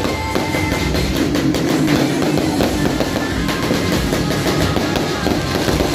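Loud, steady music with drums and guitar.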